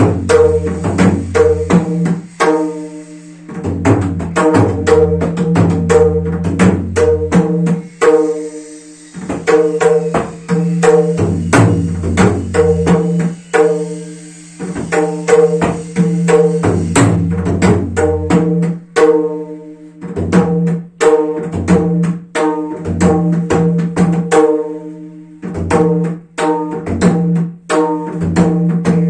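Lalakhin, a Newar double-headed barrel drum, played by hand in a Gai Jatra rhythm pattern: quick runs of ringing strokes over deep bass strokes that come and go. The playing runs in phrases broken by brief pauses every few seconds.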